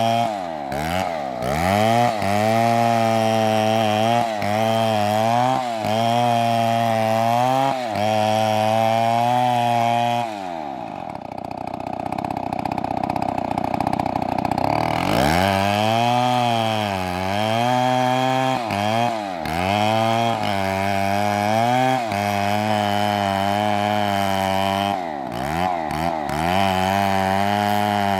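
Chainsaw cutting wood, its engine pitch sagging and recovering again and again under load. About ten seconds in the revs fall away to a low idle for some four seconds, then climb back up as it cuts again.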